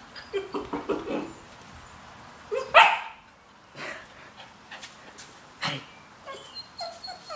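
Black Labrador puppy yipping and giving small barks while playing, the loudest a single rising yelp about three seconds in; a couple of sharp knocks come between the calls.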